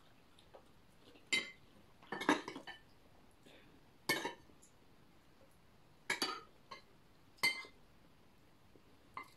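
Metal spoon and fork clinking against plates and a glass bowl while eating: a handful of sharp clinks spaced a second or two apart, with a quick flurry of them about two seconds in.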